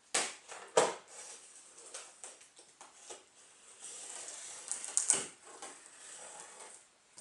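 Speaker box and packing being handled during unboxing: two sharp knocks right at the start, then rustling and scraping, with another knock about five seconds in.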